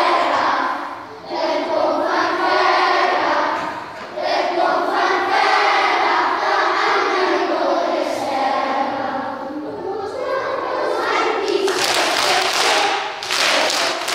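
A group of young children singing together in unison. In the last few seconds the singing gives way to louder, harsher bursts of noise.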